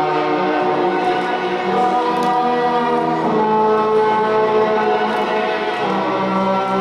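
Music playing over the sound system: a choir of voices singing long held chords that change every second or so.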